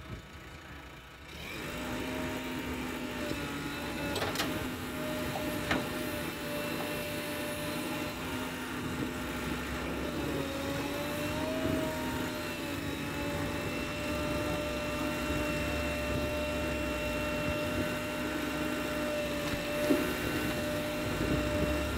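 JCB backhoe loader's diesel engine running under load with a steady whine, as the rear bucket digs wet clay; it grows louder about a second and a half in, with a couple of sharp knocks from the arm and bucket.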